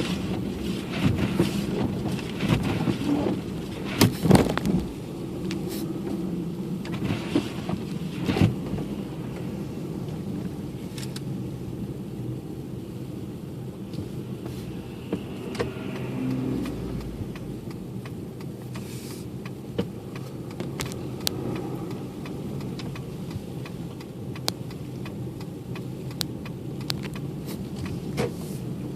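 Car driving on a snowy road, heard from inside the cabin as a steady low rumble of engine and tyres. Scattered knocks and clicks come in the first nine seconds or so, and fainter ticks follow.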